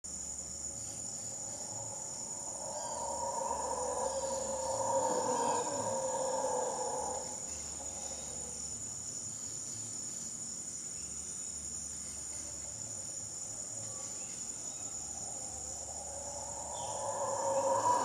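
Male mantled howler monkey roaring: a deep, rough roar swells up a few seconds in, lasts about four seconds, and starts again near the end. A steady high insect drone runs underneath throughout.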